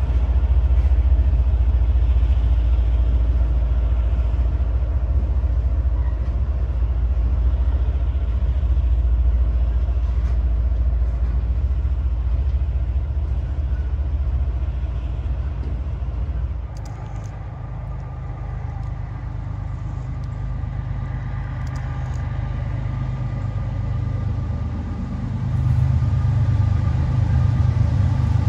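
Diesel locomotive engines running with a steady low rumble that eases off about two-thirds of the way in, then builds again near the end.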